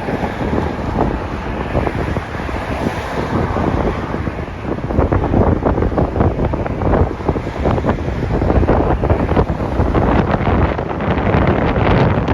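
Wind buffeting the microphone of a camera on a moving bicycle: a loud, gusty rumble that gets louder about five seconds in.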